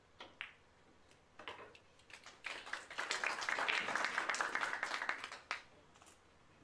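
Two quick clicks of a pool shot, the cue striking the cue ball and the cue ball hitting the 9-ball, then spectators clapping for about three seconds.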